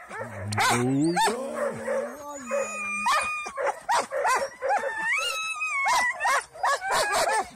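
Harnessed sled dogs barking and yipping in quick succession, about three barks a second, with long whining howls between them, some rising in pitch.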